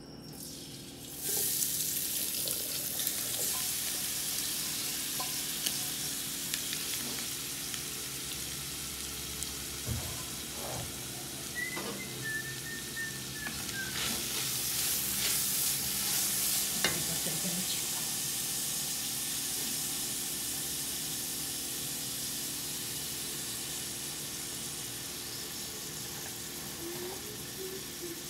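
Shredded cooked chicken sizzling in hot oil in a large pot. The frying hiss starts about a second in and holds steady, while a wooden spoon stirs it through. The sizzle is a little louder in the middle, while it is being stirred.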